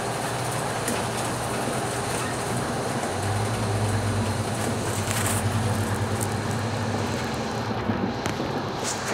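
Scania K310UB city bus heard from inside the cabin: its diesel engine hums under way with road noise and a few rattles. The engine sound grows stronger for a few seconds, then dies down near the end as the bus slows and pulls up at a stop.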